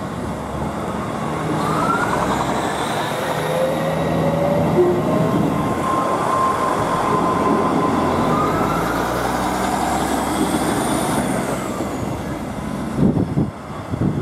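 Diesel multiple unit passenger train passing at speed: a steady rumble of wheels on the rails with engine and transmission whine that glides up and down in pitch as it goes by. Wind buffets the microphone near the end.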